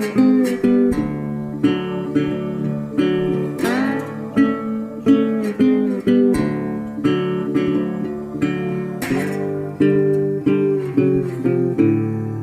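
Acoustic guitar music, picked and strummed chords, with the last chord ringing out and fading near the end.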